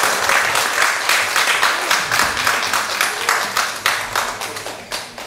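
Audience applauding, dense clapping that thins out and dies away toward the end.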